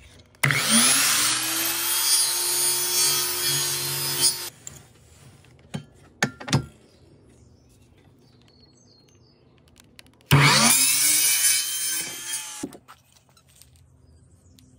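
Electric mitre saw cutting a thin wooden strip twice, a run of about four seconds and then one of about two seconds. Each run begins with the motor's pitch rising as it spins up. A few sharp knocks come between the two cuts.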